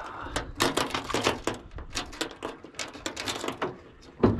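Fishing reel being cranked, rapid clicking in two runs of about a second each, then one loud knock near the end.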